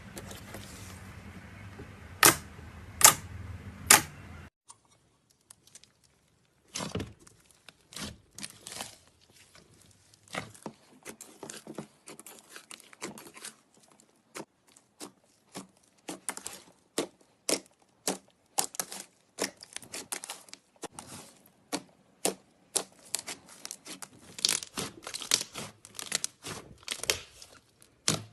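Slime being played with, giving sharp crackles and pops. Three loud snaps come in the first few seconds, then a dense, irregular run of crackling, several pops a second.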